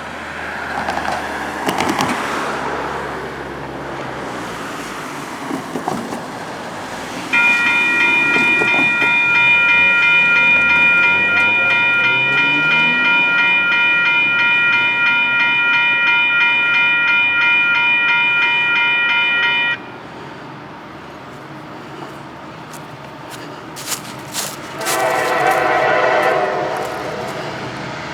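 Freight train's diesel locomotive air horn sounding one long, loud chord of several notes for about twelve seconds, ending abruptly, then a shorter, lower-pitched blast near the end, over the rumble of the approaching train.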